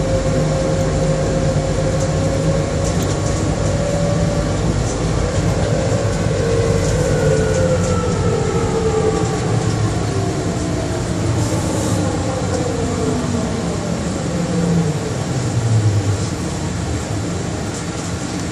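Interior running noise of a Bombardier Innovia APM 100 rubber-tyred people mover on its guideway. A motor whine holds a steady pitch, then falls in pitch from about a third of the way in as the train slows.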